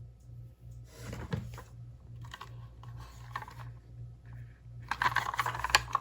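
Toy ambulance minicar's light plastic clicking and rattling as it is handled and run, thickest near the end, over a low hum that pulses about twice a second.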